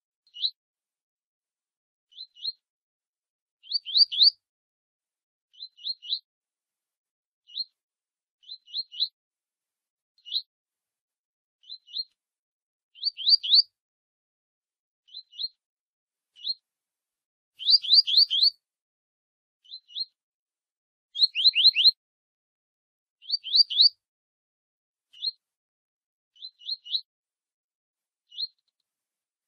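Double-collared seedeater (coleiro) giving its short 'tui tui' call: quick high notes rising in pitch, in clusters of one to four, repeated every second or two with silence between. About two thirds of the way through, two clusters are louder and denser.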